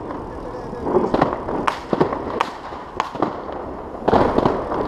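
New Year fireworks going off: a series of irregular sharp bangs and cracks, with a quick cluster of them near the end.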